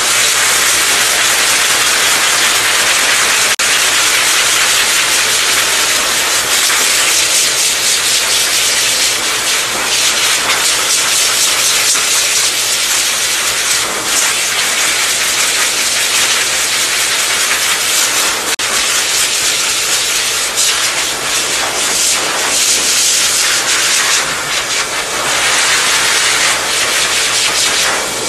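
High-velocity dog dryer blowing through its hose: a loud, steady rush of air as the nozzle is worked close against a damp dog coat.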